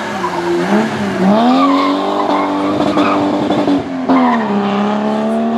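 BMW E30 rally car's engine revving hard as it accelerates past. The engine note dips and climbs again near one second, then drops at a gear change about four seconds in and rises once more.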